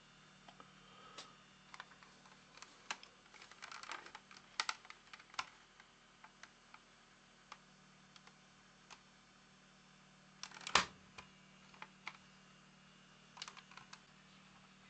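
Irregular light clicks and taps of small hard objects being handled, clustered about three to five seconds in, with one sharper click near the eleventh second, over a faint steady hum.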